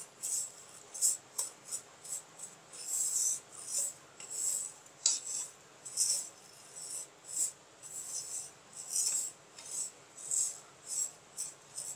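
Wooden spoon stirring and scraping dry, broken vermicelli around a nonstick pan as it fries in a little ghee. Repeated rustling, rasping strokes come about twice a second.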